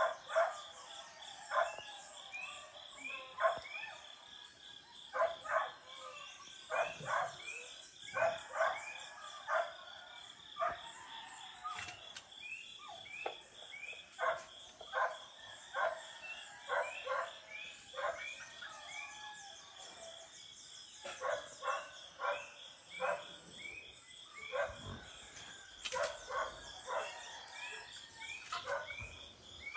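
Dawn chorus of animal calls: many short calls in quick runs of two to four, repeating, over a steady, high-pitched insect drone.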